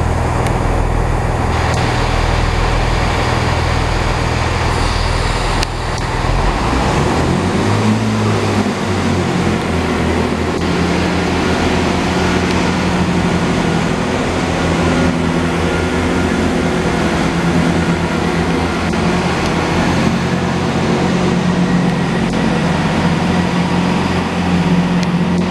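Underfloor diesel engines of a GWR Class 165/166 Turbo diesel multiple unit running at idle, a steady low engine note. About six seconds in, the note changes and settles into a different steady pitch.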